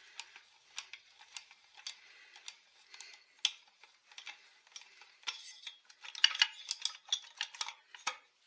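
Hand tools working the bolts of a Husqvarna 263 chainsaw's crankcase during strip-down, ticking at about three sharp metallic clicks a second. It changes to a denser, louder run of metal clicks and clinks in the last few seconds.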